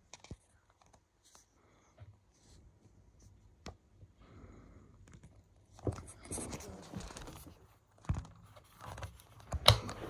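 Scattered handling sounds: light rustling and scraping with a few sharp clicks, the loudest click near the end.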